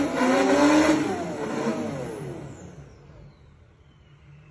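Diesel pickup truck engine revving hard at high rpm, then the revs fall away and the sound fades out over about two seconds. A faint high whine keeps dropping in pitch as it winds down.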